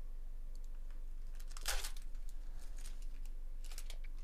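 Bowman Chrome baseball card pack wrapper torn open with a sharp rip a little under halfway in, followed by about two seconds of crinkling as the cards are slid out.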